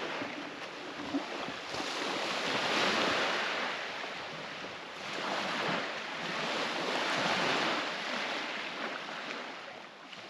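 Sea waves washing onto the shore, the surf swelling twice.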